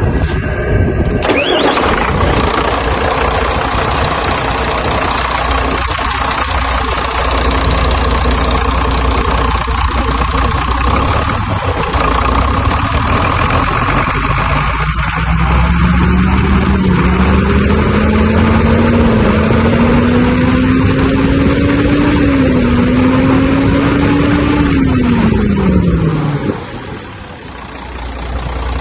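Truck's diesel engine cranking and starting about a second in, then running at idle. Over the second half a tone rises in small steps, then falls away shortly before the engine sound dips near the end.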